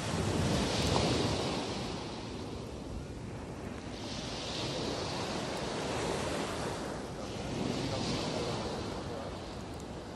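Waves breaking and washing on a pebble beach, the hiss swelling and fading three times, about every four seconds, with wind rumbling on the microphone.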